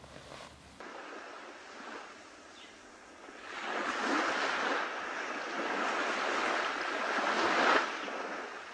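Sea waves washing against a rocky shore, swelling about three seconds in and dropping away near the end.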